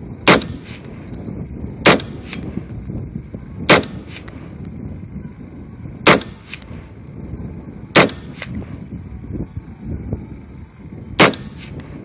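Six single shots from an LWRC M6, a piston-driven AR-15-style rifle, fired semi-automatically at an uneven pace, one every 1.5 to 3 seconds. Each sharp report is followed within half a second by a fainter second report.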